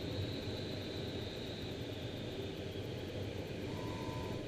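Steady rush of air over a glider's canopy and airframe on final approach with the spoilers open, heard from inside the cockpit. A faint brief tone sounds near the end.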